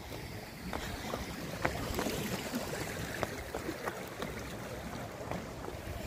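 Wind rushing over the phone's microphone, with irregular light knocks of footsteps on rock every half second or so.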